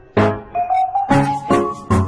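Background music with a steady beat and pitched notes.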